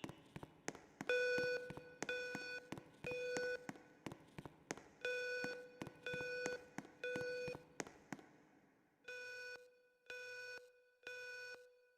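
Fire alarm evacuation tone in the temporal-three pattern: three half-second beeps at a steady pitch, a pause, then again, three sets in all, the last set quieter. Sharp ticks are heard between the beeps.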